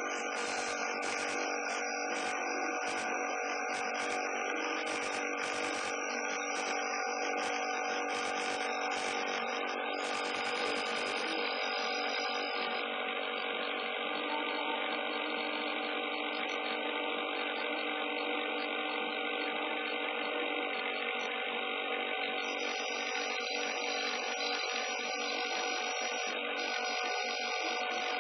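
Homemade CNC machine running: a steady motor whine made of many fixed tones, with the high hiss dropping away about ten to twelve seconds in.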